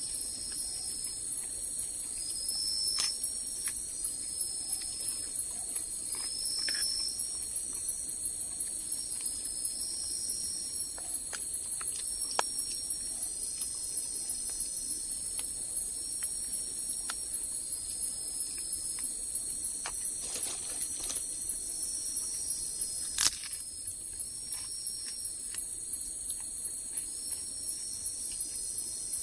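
Night insect chorus in a forest: a steady high-pitched drone, with shorter chirping calls repeating roughly once a second over it. A few sharp clicks come through, the loudest about 23 seconds in.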